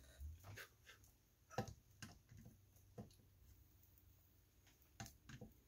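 Near silence with a few faint, scattered clicks and taps, the loudest about a second and a half in.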